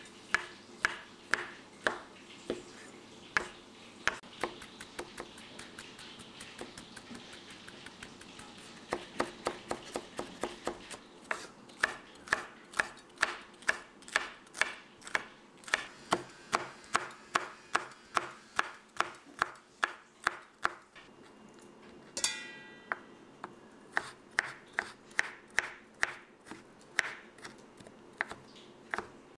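Chef's knife chopping on a bamboo cutting board, a steady run of sharp strikes about two to three a second as it cuts through cooked liver, green chilies and ginger. A brief ringing sound comes about three-quarters of the way through.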